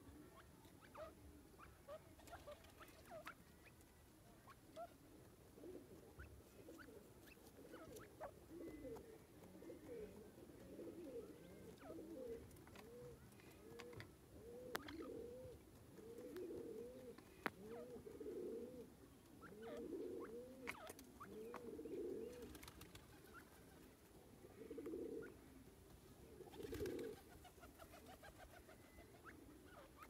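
Soft, low bird calls: short arching notes repeated about twice a second in runs, mostly in the middle and later part, with faint scattered clicks as the grey francolin pecks at dry soil.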